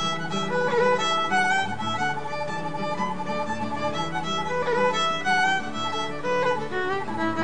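Background music: a flowing melody line, with a wavering held note about a second in, over sustained lower notes.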